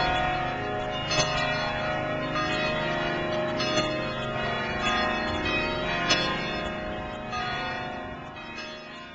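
Church bells pealing, several bells struck over and over so that their ringing overlaps, dying away near the end.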